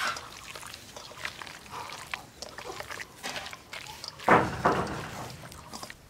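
A hand squishing and kneading raw mutton pieces in a wet marinade of spice paste and yogurt in a stainless steel bowl: irregular wet squelches, loudest a little after four seconds in.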